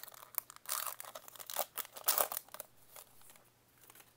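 Plastic-foil trading-card pack wrapper being torn open and crinkled by hand, in several quick rustling bursts, then fainter handling of the cards near the end.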